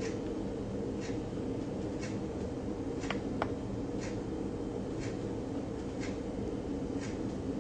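Soft, regular ticking about once a second over a steady low room hum, with two sharper clicks in quick succession about three seconds in.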